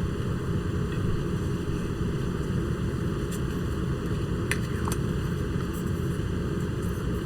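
Steady low rumbling background noise, with a couple of faint clicks about four and a half seconds in.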